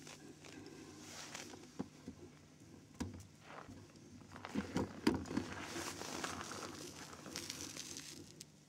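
Faint, irregular rustling and crunching with a few short knocks, loudest about halfway through.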